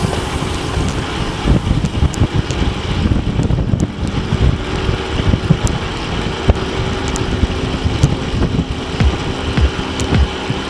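Wind buffeting the microphone of a camera on a fast-ridden track bicycle, over a steady rumble from the tyres on the concrete velodrome surface, with scattered short knocks.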